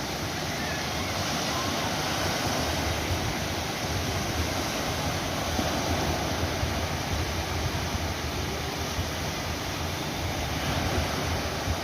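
Ocean surf: a steady wash of waves with no single crash standing out, and a fluttering low rumble of wind on the microphone.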